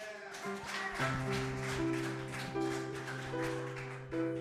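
Instrumental background music with held chords that shift about once a second and a guitar playing over them.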